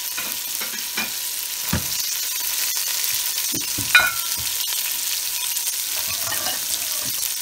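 Chopped red onion, garlic and bay leaves sizzling in hot oil in a large pot: a steady frying hiss. A few short knocks and a clink cut through it, the loudest about four seconds in.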